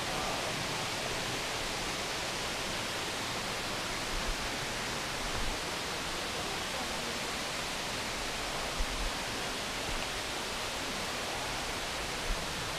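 Steady rush of creek water, an even hiss with no pauses, with a few soft low thumps near the middle and again near the end.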